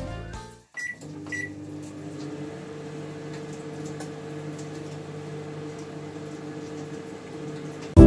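800-watt Samsung microwave oven being started: two short keypad beeps about a second in, then the steady hum of the oven running.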